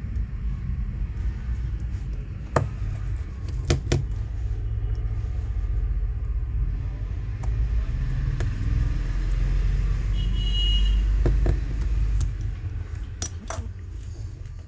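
Sharp little metal clicks and taps, about half a dozen, as a precision screwdriver sets and tightens the tiny screws in a smartphone's metal midframe, over a low rumble that swells toward the end and then fades.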